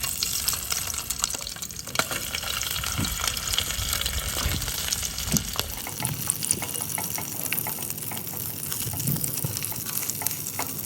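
Food frying in a hot pan: a steady sizzle with many small crackles and pops.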